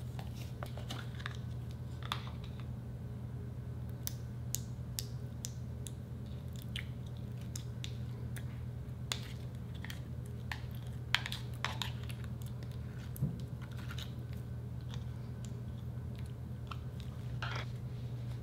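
Clear slime being handled in and tipped out of a small plastic tub: scattered sticky clicks and crackles from the slime and the flexed plastic container, over a steady low hum.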